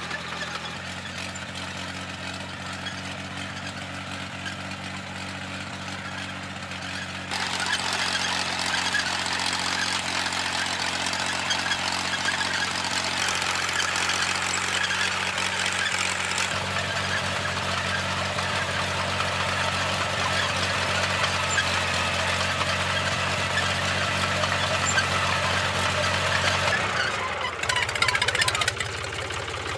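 Engine of a small old crawler tractor running steadily with a low, even note. A harsher, noisier layer rides over it from about a quarter of the way in, the tone shifts abruptly a few times, and there is a louder burst shortly before the end.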